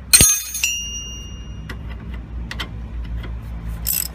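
A sharp metallic clank that rings for about half a second, then light irregular metal clicks as a socket spanner works the rusty nyloc nut off a VW T4 track rod end ball joint.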